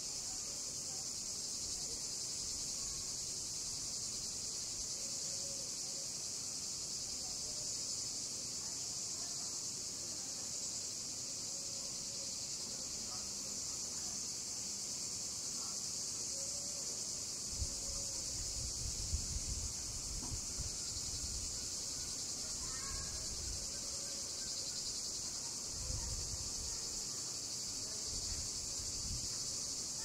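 Chorus of cicadas buzzing, a steady high drone that never lets up, with low rumbling bursts joining in the second half.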